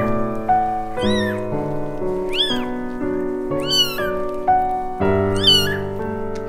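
Newborn kitten mewing: four short, high-pitched cries spaced about a second or more apart, each rising and then falling in pitch, over soft background music.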